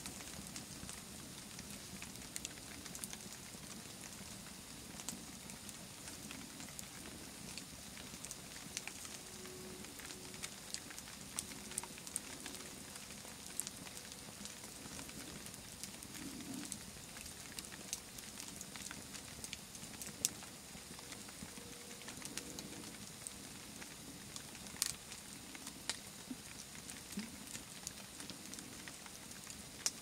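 Wood campfire burning, with irregular sharp crackles and pops over a steady soft hiss, a few snaps louder than the rest.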